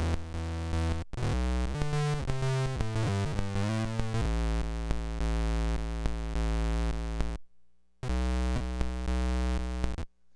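Electric guitar played through a hand-built circuit-bent noise pedal with its crazier effects switched on, giving a buzzy, synth-like tone. It steps through several pitches, then holds one note that cuts out suddenly about seven seconds in, comes back, and stops near the end.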